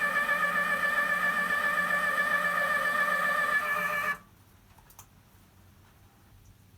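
Telescope mount's motor drive slewing at a slow 2° per second, giving a steady whine of several pitches with a slight warble, which the owner flags as an abnormal noise. It stops suddenly about four seconds in, leaving a few faint ticks.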